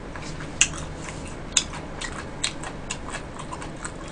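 Close-miked chewing of a mouthful of stir-fried sundae and gopchang: irregular wet clicks and smacks from the mouth, about two or three a second.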